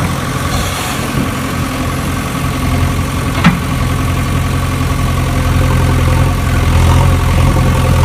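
Steady low engine drone, like an idling engine, with one sharp click about three and a half seconds in.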